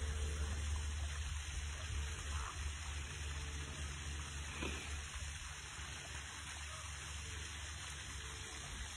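Steady outdoor background noise: a constant low hum under an even hiss, with one brief faint sound about four and a half seconds in.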